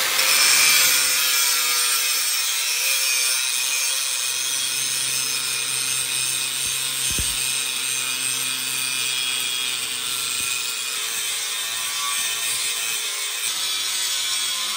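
Angle grinder with an abrasive disc grinding a steel knife blank held in a vise, running steadily under load with a continuous harsh grinding noise.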